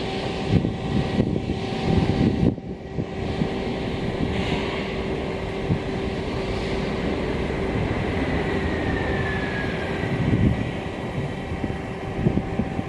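Strong typhoon wind gusting and buffeting the microphone, a continuous rumble that surges and eases, with a faint steady hum underneath.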